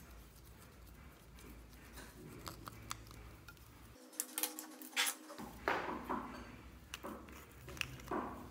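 Light clicks, taps and short rustles of small plastic cosmetic containers being handled: a brush dabbed in a powder compact, then a nail polish bottle being opened near the end, with a few sharper clicks a little past halfway.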